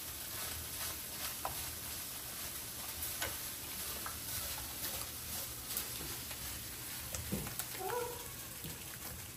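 A silicone spatula stirring browned ground meat into thick tomato sauce in a ceramic slow-cooker crock: soft wet stirring with small scrapes and clicks against the pot. A brief whine sounds about eight seconds in.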